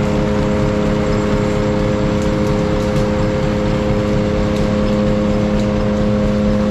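Gold-mill processing machinery running steadily: an even mechanical drone with a strong low hum and a few higher steady tones, over water washing across a shaker table's riffled deck.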